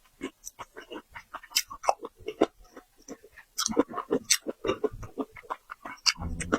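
Close-up chewing and sucking of raw marinated tiger prawn: a rapid run of short clicks and smacks, with a low thump near the end.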